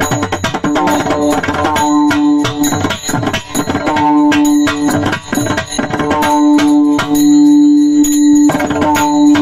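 Warkari kirtan music: a steady held note over a fast run of drum strokes and jingling cymbals.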